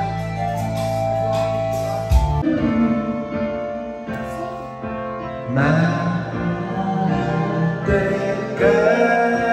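Karaoke machine backing track playing through the room speakers. About five and a half seconds in, a voice starts singing along through the microphone.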